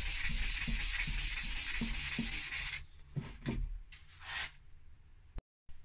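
Steel axe head rubbed back and forth by hand on oiled 600-grit wet-and-dry sandpaper, a fast, even rasp of about five strokes a second that stops about three seconds in. A few light knocks follow.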